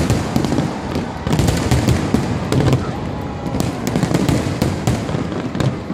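Fireworks display going off: a rapid, irregular run of sharp bangs and crackles over a dense low rumble.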